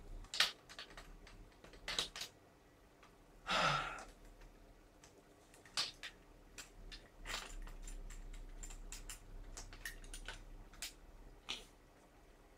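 Small parts of a WE M4 gas-blowback airsoft rifle clicking and tapping as they are handled during assembly of an open-bolt conversion: irregular sharp clicks, with one longer rasp about three and a half seconds in.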